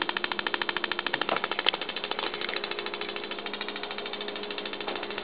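High-voltage sparks from an automotive ignition coil snapping across the gap between two aluminium cans in a rapid, evenly spaced train, pulsed by a 555 timer circuit. One sharper snap comes nearly two seconds in, after which the snapping goes on more faintly.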